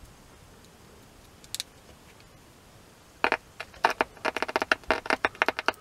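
Small loudspeaker clicking as a 9-volt battery is touched to the wires of an audio output transformer wired to it. There is one click early, then a fast, irregular run of clicks and crackles from about three seconds in as the contact is made and broken. The clicks show the transformer and speaker passing the test.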